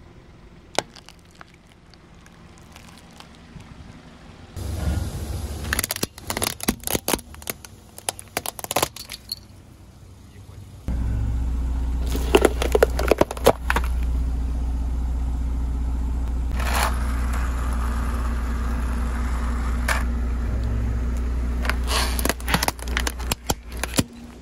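A car tyre rolls slowly over small objects and crushes them: foil-wrapped chocolate eggs, then a cardboard gift box, with bursts of sharp cracking and crackling. From about eleven seconds in, the car's engine runs as a steady low hum under the cracks.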